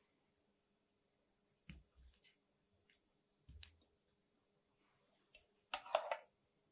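A serving spoon clicking a few times against the dishes, then a loud wet splat about six seconds in as thick chunky tomato sauce is poured over hamburger steaks in a ceramic bowl.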